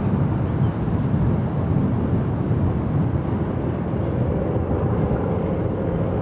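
Twin CFM56-7B turbofan engines of a Boeing 737-800 airliner passing low overhead: a steady, deep rumble.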